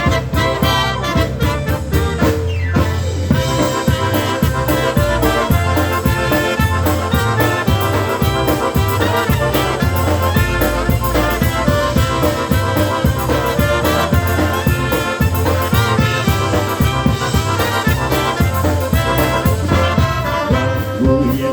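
Live polka band playing an instrumental introduction: brass leading over a steady two-beat bass.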